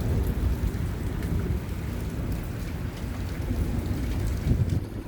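Heavy rain pouring down, with a low rumble of thunder that swells briefly about four and a half seconds in.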